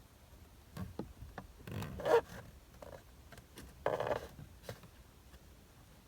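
Screwdriver scraping and clicking inside the back of a VW steering wheel while feeling for the airbag's spring clip. There are a few sharp ticks, and two louder rasping scrapes about two and four seconds in.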